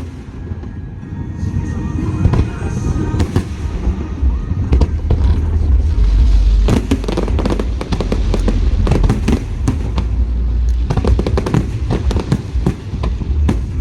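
Aerial fireworks display: many shells bursting in quick succession with sharp bangs and crackles, thickening from about four seconds in into a dense, continuous low rumble of overlapping booms.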